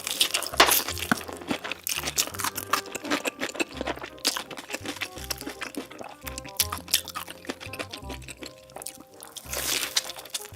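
Close-miked crunchy biting and chewing of food, many sharp crackles in quick succession, over background music with a repeating low beat.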